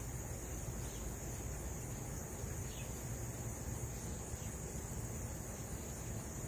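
Steady, high-pitched chorus of summer insects, an unbroken even trill, over a low rumble.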